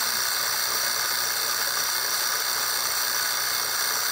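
Small electric food processor running steadily, its blade churning a loose, oily mixture of herbs and olive oil.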